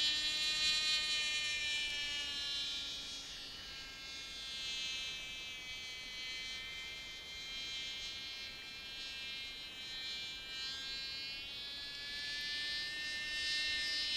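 Cox TD .049 single-cylinder two-stroke glow engine of a small radio-controlled model plane in flight, a high-pitched buzz. It grows fainter through the middle as the plane flies farther off and louder again near the end.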